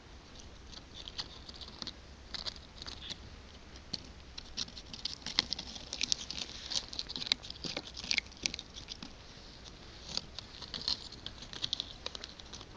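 Quick, irregular clusters of light clicks and scratchy taps from a pet cat, thickest in the middle of the stretch.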